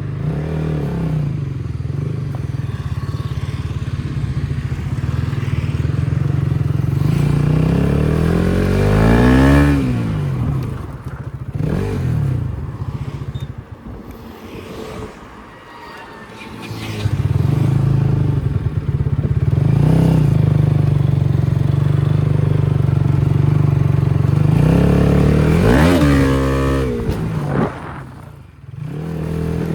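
Motorcycle engine running hard, revving up in rising sweeps and dropping off several times, with a quieter stretch midway. The rider says its clutch plate is burnt.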